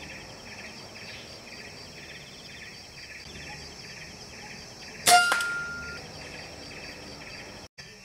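A single sharp air-rifle shot about five seconds in, followed by a short metallic ring. Behind it runs a steady, high-pitched chirping that pulses about twice a second.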